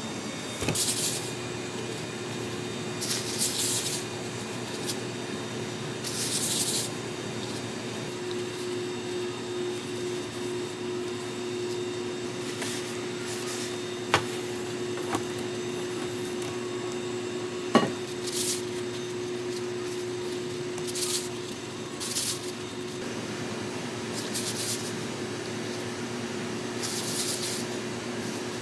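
A steady machine hum with one held tone, under short hissing sounds every few seconds and two sharp clicks around the middle.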